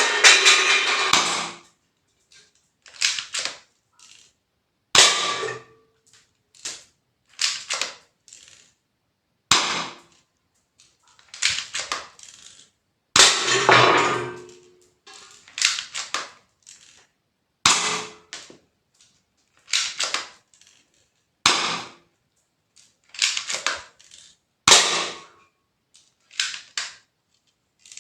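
Spring-powered airsoft pistol, an M&P 40 replica, fired single shots indoors: about six sharp cracks a few seconds apart. Between them come clusters of shorter clicks and clatter as the slide is pulled back to cock the spring for each shot.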